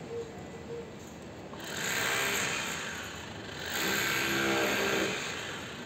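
Construction-site machinery running in swells, growing loud and easing off twice.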